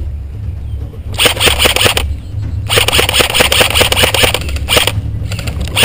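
Airsoft electric gun firing on full auto: a burst of rapid clicks about a second long, then a longer burst of about two seconds.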